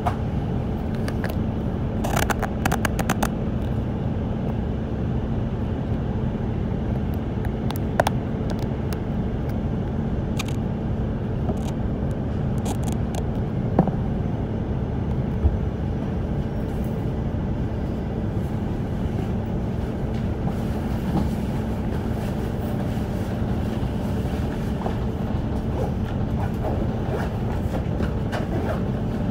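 Cabin noise inside a moving city bus: a steady drone of engine and road noise with a constant low hum, and scattered rattles and clicks with a few sharper knocks.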